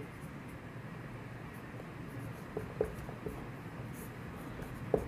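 Faint scratching of a marker pen writing on a whiteboard, with a few light ticks as the pen strokes start and lift, the sharpest near the end.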